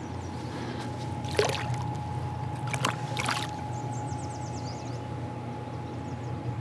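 Water splashing a few times, about one and a half and three seconds in, as a caught smallmouth bass is let go back into a shallow river. A steady low hum and a faint steady tone run underneath.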